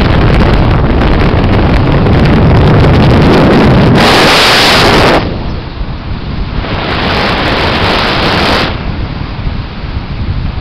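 Heavy wind buffeting the microphone of a camera held out of the window of a car moving at highway speed: a loud, steady rush of air. The wind noise eases markedly about five seconds in.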